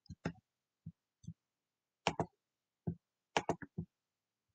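About a dozen short, sharp clicks from a computer being operated, coming singly and in irregular groups; the fastest run is four clicks within half a second near the end.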